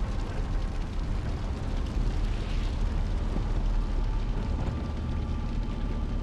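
Steady low rumbling roar of a truck driving, as heard from inside the cab, with no distinct bangs.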